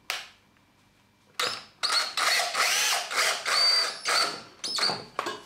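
Cordless drill-driver driving a screw through a steel unistrut channel into timber, the motor starting about a second and a half in and running in several bursts, its whine rising and falling, before stopping near the end.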